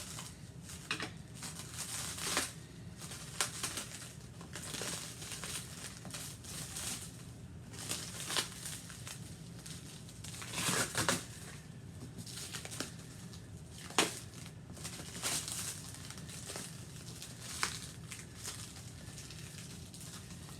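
Packing material and cardboard crinkling and rustling as a shipping box is unpacked by hand, with several sharp crackles scattered through.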